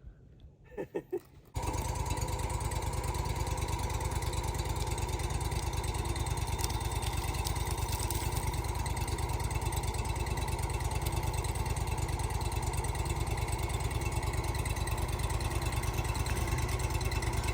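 Portable sawmill's engine running steadily with a fast, even pulse. It cuts in abruptly about a second and a half in, after a few faint knocks.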